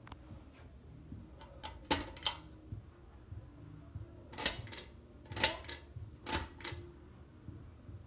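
Sharp clicks of a Craftmade hugger ceiling fan's pull-chain switches, coming in pairs as a chain is pulled and let go. There are a few clicks around two seconds in, with the light going off, then three more pairs between about four and a half and seven seconds, with the fan switched up to a fast spin.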